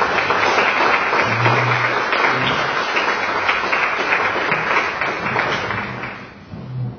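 Audience applauding, a room full of clapping that dies away about six seconds in.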